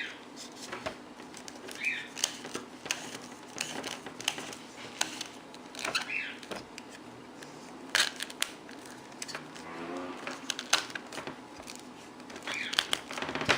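Irregular clicks, taps and short scrapes of hard plastic vacuum hose-connector parts being handled and fitted together by hand.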